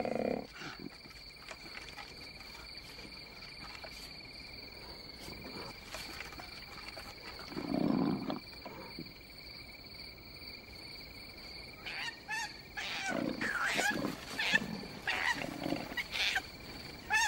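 Koala calls: a short low call about eight seconds in, then from about twelve seconds a run of higher-pitched squawks and cries as two koalas tussle on a branch. Crickets trill steadily underneath.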